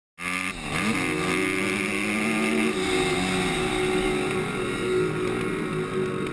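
Kawasaki dirt bike engine heard from on board while riding, cutting in suddenly. The revs climb sharply within the first second, then hold steady at high revs under load.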